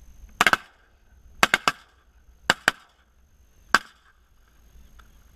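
A volley of shotgun blasts from three hunters firing together, about eight sharp shots in quick clusters over some three and a half seconds, the last one alone a little before four seconds in.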